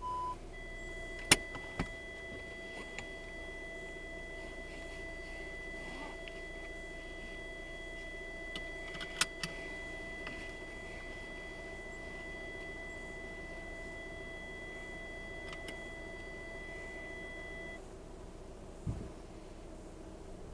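Steady hum inside a stationary car, with thin high whines over it. A short beep comes right at the start, and there are a few sharp clicks and a soft thud near the end.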